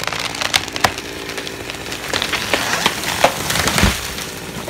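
Huge red pine going over after being felled: the wood left holding the trunk cracks and splinters in a run of sharp snaps as it tips, with branches breaking. A single heavy thud comes just before four seconds in as the trunk hits the ground.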